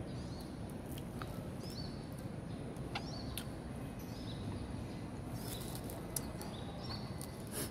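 Small birds chirping over and over in short, high calls, over a steady low outdoor background noise, with a few sharp light clicks.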